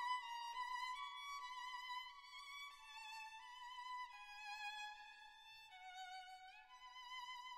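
Background music: a solo violin playing a slow melody with vibrato, its held notes stepping gradually downward, then sliding back up near the end.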